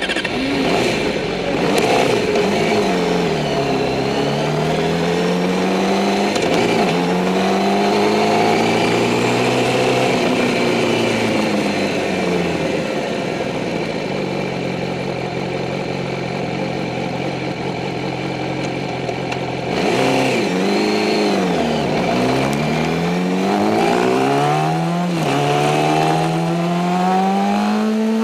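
Racing motorcycle engine heard from a camera mounted on the bike, running at low revs with the throttle opening and closing gently. About two-thirds of the way through it accelerates hard, the revs climbing and dropping back with each upshift.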